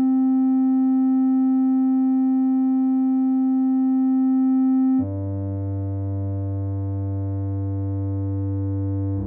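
Software modular synthesizer voice (VCV Rack) holding one steady note, then jumping to a lower note with many more overtones about five seconds in, which is also held. The pitch changes as the note and octave of each step of the arpeggio are being set.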